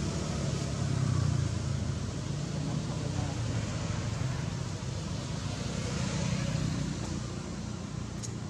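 Steady low rumble of road traffic, engine noise without any clear rise or fall.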